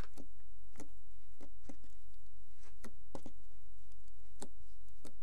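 Slime being squeezed and poked by hand, giving about a dozen short wet clicks and pops at uneven intervals over a steady low hum.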